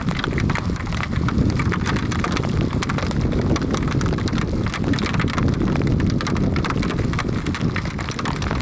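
A herd of wild horses galloping past, many hoofbeats over a steady rumble of wind on the microphone.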